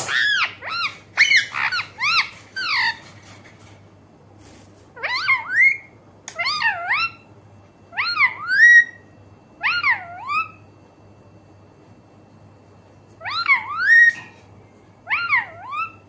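Rose-ringed parakeet calling: a quick run of short rising-and-falling calls in the first three seconds, then short groups of two or three calls with pauses of a second or two between.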